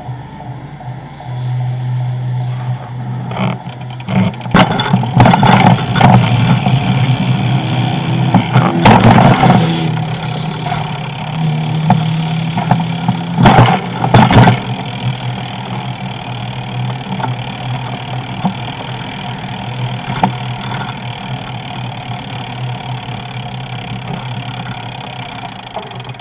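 Road traffic on a multi-lane avenue: cars passing over a steady low hum, with louder rushes about four to ten seconds in and again around fourteen seconds in.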